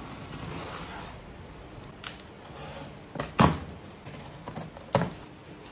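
Cardboard shipping box being opened by hand: tape and cardboard flaps rustling and scraping, with a sharp knock about three and a half seconds in and another near the end.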